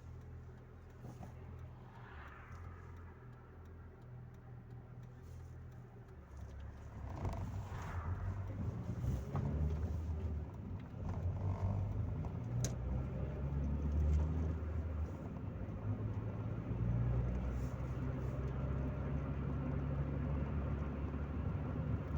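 Interior sound of a Chevrolet Corsa Maxx on the move: a low engine drone and road noise inside the cabin, growing louder about seven seconds in and staying louder.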